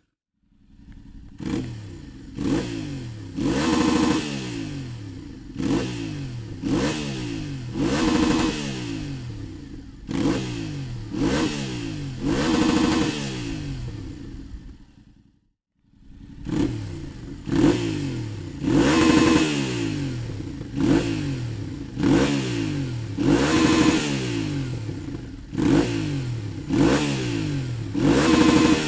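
Yamaha Tenere 700's 689 cc parallel-twin engine revved through a Dominator aftermarket exhaust: repeated quick throttle blips, each rising sharply and falling back, about one every second and a half. The sound cuts out briefly about halfway through, then another run of similar revs follows.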